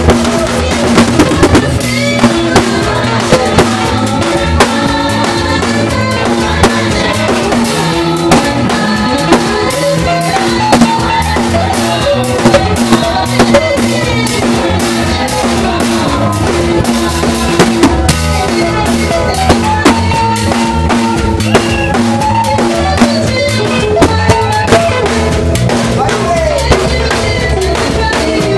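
Loud worship music with a drum kit keeping a steady beat, kick and snare hits over held chords.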